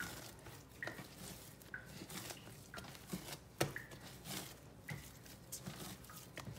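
Hands kneading a sticky, well-hydrated pizza dough on a countertop: irregular soft slaps and sticky peeling clicks as the dough is pushed, folded and pulled off the counter and hands, with one louder slap about three and a half seconds in.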